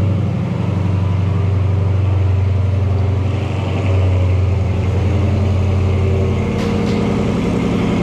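2014 Dodge Charger R/T's 5.7 L HEMI V8 idling steadily just after a remote start. It is the sign that the remote start now works with the hood closed, since the new hood latch reads the hood as shut.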